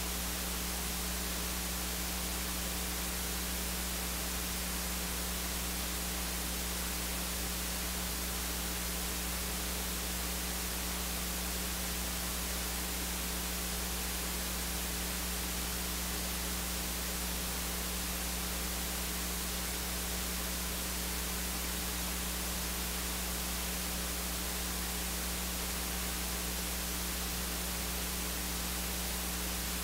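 Steady electrical hiss with a low mains hum, unchanging throughout, and no other sound.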